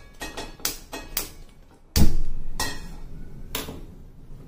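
Stainless steel pan set down on a gas hob's grate with a few metal clinks, then the burner is lit: a sudden loud burst about two seconds in that fades over a second, followed by a couple of clicks from the knob.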